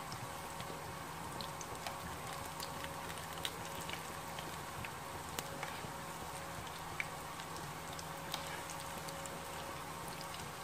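Spinach pakoras frying in hot oil in a small pan: a steady sizzle with scattered small pops and crackles.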